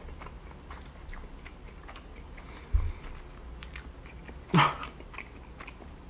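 Close-miked chewing and wet mouth smacks of a person eating sushi. Near three seconds there is a low bump, and about four and a half seconds in comes one louder, short burst of mouth noise.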